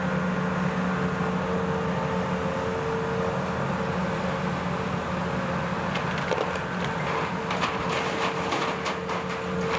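Demolition excavator's diesel engine running steadily with a constant hum, and from about six seconds in, wood and debris cracking and clattering as the bucket tears at a building's wall.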